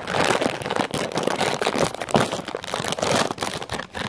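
Plastic-foil chip bag crinkling and crackling as it is handled and pulled open, irregular sharp rustles throughout.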